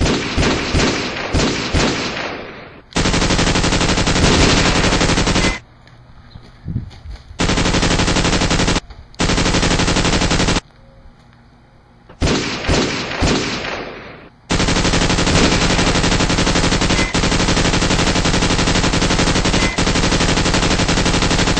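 Dubbed-in automatic gunfire sound effects. A string of shots trails off at the start, long unbroken stretches of machine-gun fire follow, and a few separate shots come again about halfway through.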